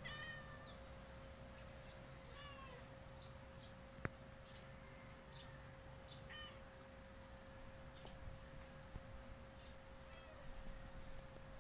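Faint, steady, high pulsing trill of an insect, with a few short falling chirps every few seconds and a single sharp click about four seconds in.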